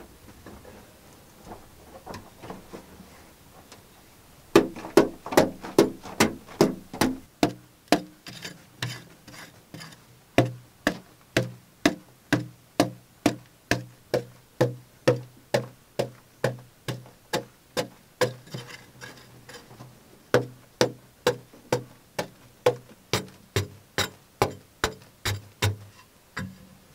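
A long-handled digging tool striking packed earth in a narrow earth tunnel, in a steady rhythm of about two strokes a second that starts a few seconds in, with a few faint taps before it.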